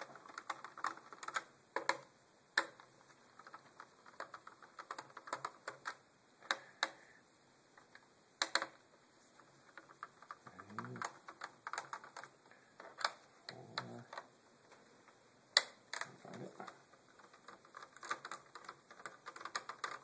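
Irregular light clicks and taps of a small Phillips screwdriver and fingers working on the plastic underside of an Acer Aspire laptop while the screws of its access plate are taken out, with a few sharper clicks standing out.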